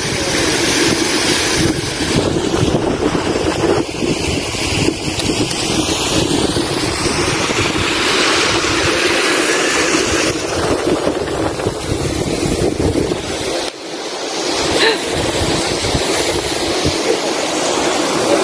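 Steady rushing noise of a small mountain waterfall mixed with wind buffeting the microphone, with a brief lull about fourteen seconds in.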